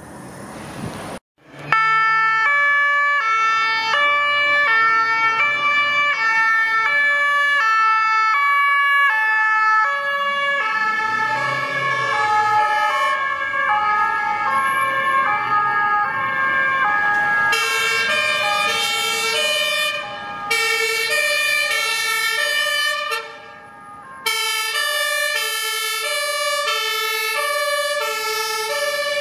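Fire engines' German two-tone sirens (Martinshorn), alternating steadily between a low and a high note. From about ten seconds in, a second siren sounds at the same time, out of step with the first. Both cut out briefly twice.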